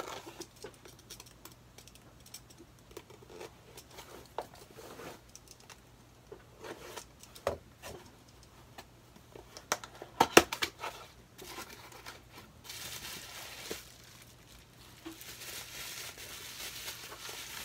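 Small cardboard box being opened by hand: scattered taps and scrapes of the flap and packaging, with a few sharp knocks about ten seconds in. Near the end, the crinkling of a plastic bag of bubble wrap being handled and opened.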